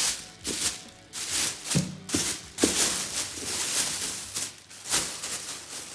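Cardboard box and packing being opened and handled: a run of short rustling, tearing swishes with a few knocks about two to three seconds in.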